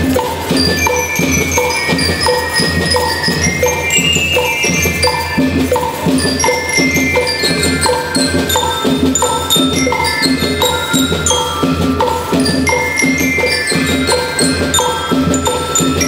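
School marching band playing: bell lyres ring out a high melody over a steady marching drum beat of about three strokes a second.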